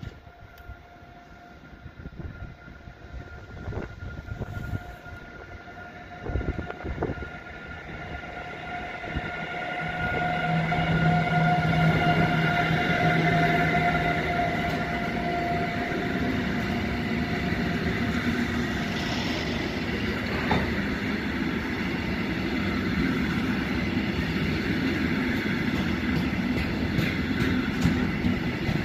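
An electric locomotive hauling a container freight train approaches and passes, its electric whine and rumble growing louder. The container wagons then roll past in a steady, loud rumble and rattle.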